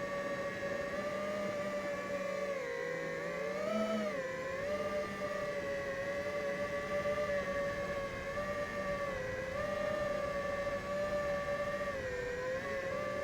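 FPV quadcopter's brushless motors and propellers whining in flight. The pitch holds fairly steady, briefly rises then dips about four seconds in, and wavers a little again near the end.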